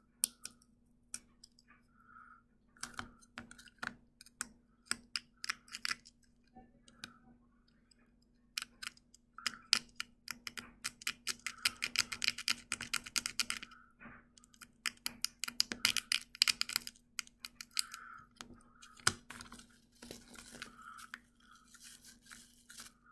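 A needle scraping and picking at a hard sugar honeycomb (dalgona) candy to free the cut-out shape: irregular sharp clicks and scratchy stretches of scraping, densest in the middle, as small pieces chip away.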